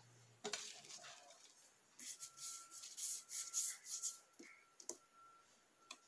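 Faint rubbing and light scraping, a handful of short strokes about two to four seconds in, as a thin EVA foam petal is pushed and pressed against the metal soleplate of an upturned clothes iron with a wooden stick and a finger. A faint steady high tone sits underneath.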